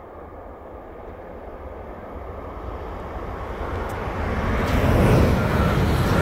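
Mälartåg ER1 double-deck electric multiple unit approaching and passing close: a rising rumble of wheels on rails and running gear, growing steadily louder to a peak about five seconds in.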